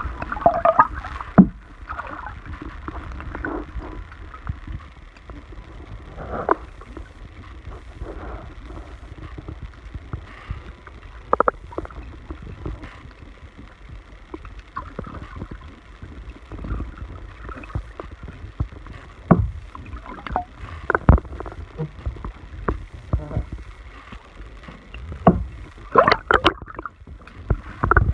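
Audio from an iPhone 7's own microphone held underwater: a muffled low rumble with irregular knocks and gurgles every few seconds, and a louder cluster near the end. The owner takes the occasional noise for water creeping into the phone through a broken seal.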